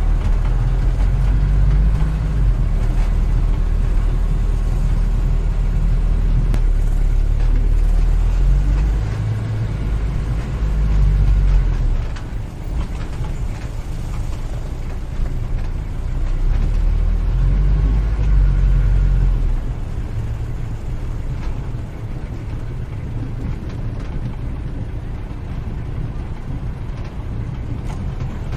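Low, steady rumble of a vehicle running. It eases off about twelve seconds in, swells again from about sixteen to nineteen seconds, then drops back.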